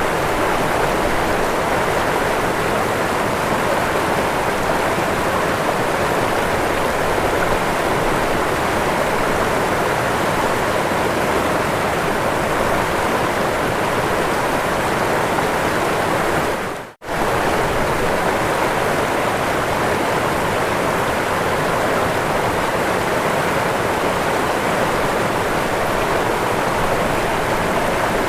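Waterfall: a steady, even rush of falling water. It drops out for a split second about two-thirds of the way through, then continues unchanged.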